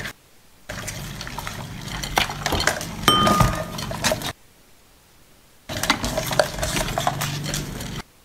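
Baijiu and beer being poured over the seafood, liquid splashing with glass and dish clinks, including a short ringing clink about three seconds in. The sound comes in two stretches with a quiet gap between them.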